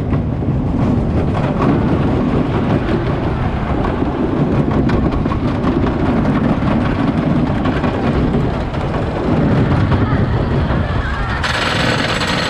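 Wooden roller coaster train rolling along the track, its wheels rumbling and clattering on the wooden structure. Near the end a sudden, brighter mechanical rattle begins as the train reaches the lift hill and the lift chain takes it.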